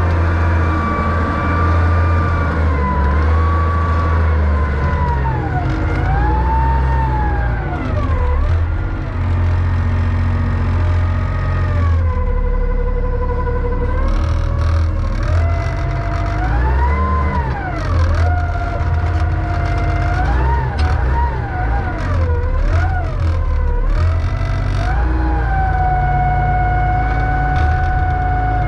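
John Deere 444 wheel loader running hard, its engine rumble steady underneath a whine that rises and falls in pitch again and again as the hydraulics lift and tilt the load of logs. Faint knocks come in the second half.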